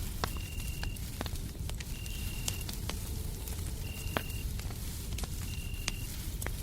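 Wood fire crackling with scattered sharp pops over a steady low white-noise rumble, while a cricket chirps four times, each chirp about half a second long and evenly spaced.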